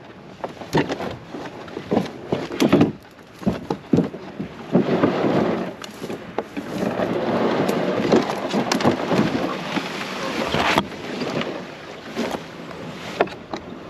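Canoe being hauled out of the water onto the bank: irregular hollow knocks and thumps of the hull, with scraping and rustling through brush and water. The sharpest knock comes about eleven seconds in.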